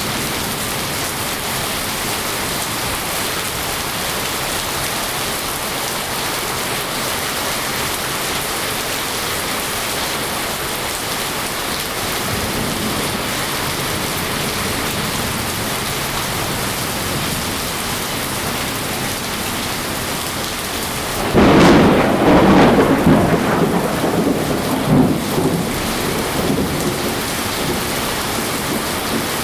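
Steady rain. About 21 seconds in, a sudden loud clap of thunder rumbles on and fades over several seconds.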